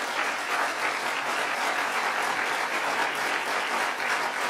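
Audience applauding steadily: a dense, sustained patter of many hands clapping.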